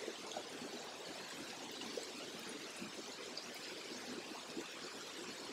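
Steady rush of a flowing stream, a faint even sound of running water.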